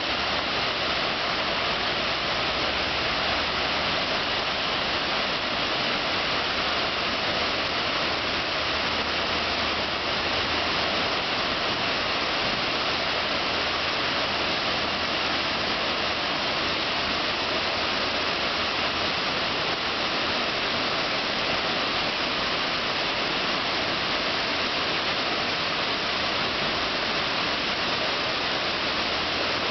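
Tall artificial waterfall, about 32 m high, falling through a rock grotto into a pool: a steady, unbroken rush of falling water.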